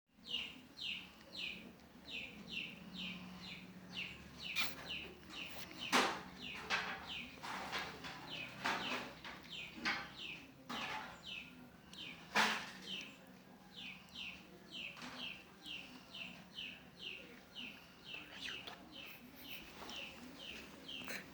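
A small bird chirping over and over, about two short, high, falling chirps a second, with a few louder sharp knocks about six and twelve seconds in.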